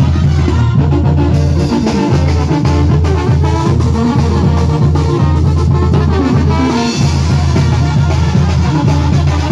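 Live band playing a fast dance tune through the PA system, loud and steady: drum kit and percussion driving a heavy bass line, with other instruments on top.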